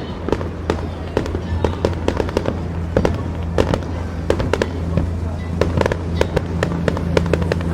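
Fireworks going off in a rapid string of sharp pops and crackles, several a second, with a louder bang about three seconds in, over a steady low hum.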